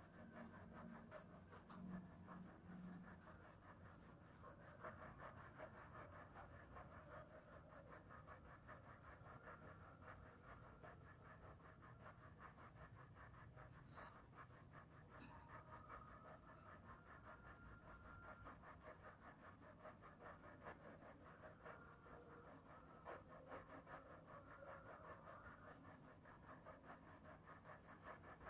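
Faint, continuous scratchy rattle of a waist-twisting disc turning back and forth under a person's feet, its ball bearings rolling.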